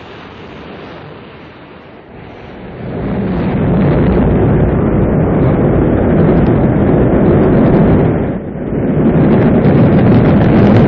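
Rocket engines at liftoff: a deep, noisy rumble that swells about three seconds in and then holds loud, with a brief dip about eight and a half seconds in.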